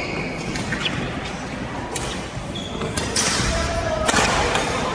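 Badminton rally: sharp cracks of rackets hitting the shuttlecock, one of them at about four seconds in, and brief squeaks of shoes on the court floor, all echoing in a large hall. Voices can be heard in the background.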